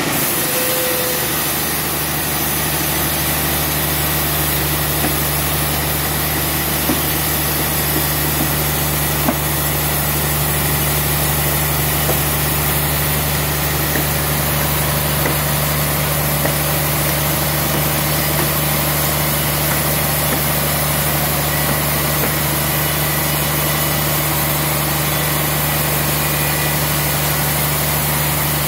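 Sawmill band saw and its drive motor running with a steady, unchanging hum, with a few faint clicks.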